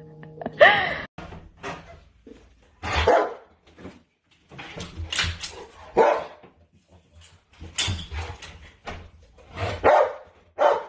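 Bernese mountain dog barking repeatedly, single barks spaced irregularly a second or two apart.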